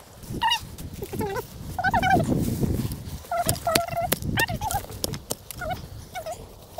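Farmyard fowl calling: a string of short, wavering calls, some held briefly on one pitch. Scattered clicks and a low rustling noise sound alongside them.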